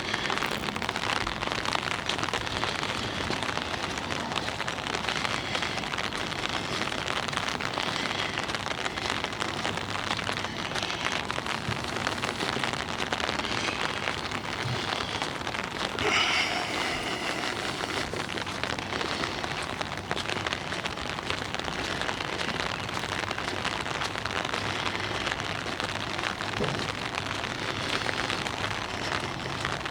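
Steady rain pattering on an umbrella held just over the microphone, a dense crackle of drops. About sixteen seconds in, a brief louder sound cuts through.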